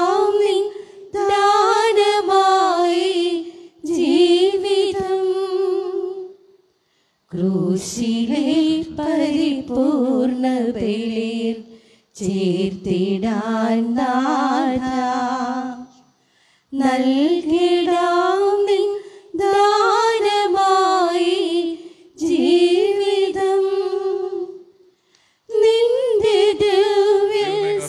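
A woman singing a hymn unaccompanied, in phrases of two to four seconds separated by brief breaths and pauses.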